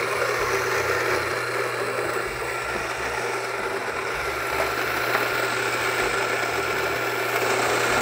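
Rancilio Rocky burr grinder's motor running steadily as it grinds coffee, with a constant low hum under the grinding noise, while the hopper is turned to a finer grind setting.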